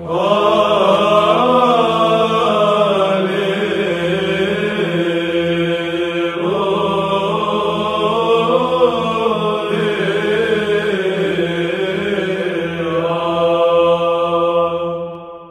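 Byzantine chant: a choir sings a slow, winding melody over a steady held drone note (the ison), fading out near the end.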